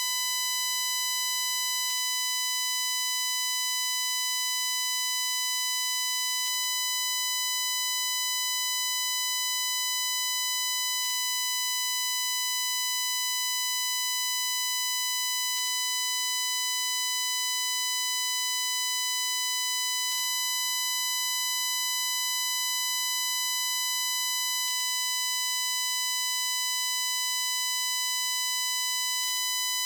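Recording glitch from a Shure MV88+ microphone on a phone: an unbroken, piercing high-pitched buzz around 1 kHz with a ladder of overtones, the digital fault that replaced the intended birdsong. Faint ticks come about every four and a half seconds.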